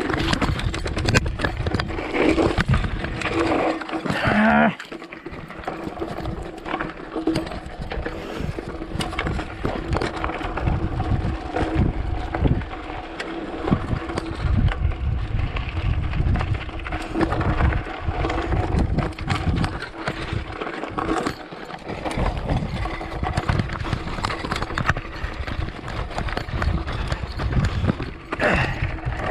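Mountain bike ridden fast down a rough, rocky dirt trail: a steady irregular clatter of the bike rattling and the tyres hitting rocks, with low rumble. It is loudest for the first few seconds, then eases a little.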